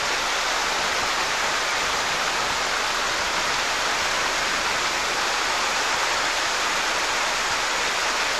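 River rapids, white water rushing over rocks in a steady, unbroken rush.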